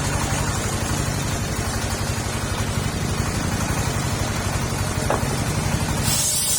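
Petrol engine driving a mobile circular sawmill, running steadily with a low pulsing note while the blade spins free. About six seconds in, a loud high hiss starts up again, typical of the blade going into the wood.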